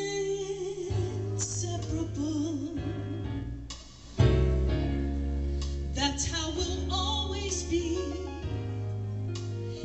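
A woman singing into a microphone over instrumental accompaniment. The music drops away briefly just before four seconds in, then comes back louder.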